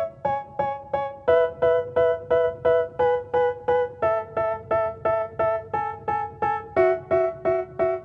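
Background music: a piano-like keyboard playing short, evenly repeated chords, about three a second, moving to a new chord every second or so.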